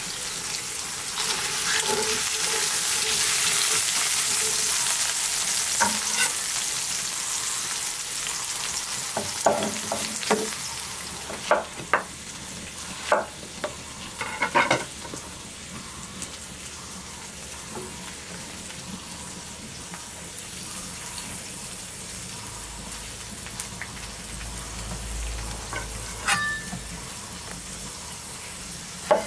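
Dry-aged pork steak sizzling in oil on a clay grilling plate, a loud, even hiss that fades out about halfway. Then a heavy knife cuts zucchini and tomato on a wooden board, giving a series of sharp knocks.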